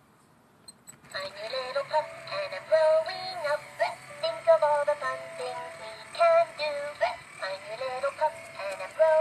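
Interactive plush puppy toy playing a song in a synthetic singing voice through its small speaker. The tune starts about a second in after a short silence.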